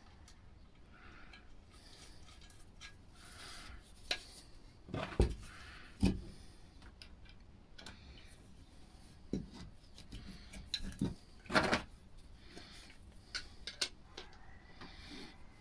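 Hands working a plastic pipe adaptor and its metal fitting: scattered clicks, taps and rubbing as the bolt and nut are fitted and turned with a small spanner, with a few louder knocks about 5, 6 and 12 seconds in.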